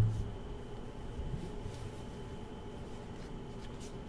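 Faint rustling and light clicks of a stack of football trading cards being flipped through by hand, over a steady low hum.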